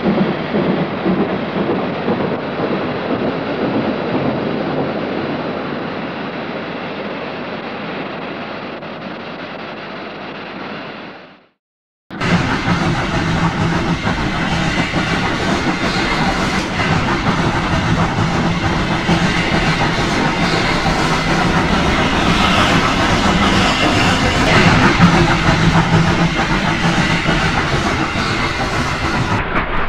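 Steam locomotives hauling a heavy train up a grade, running continuously. The sound fades, cuts out for under a second about eleven seconds in, then comes back louder and clearer.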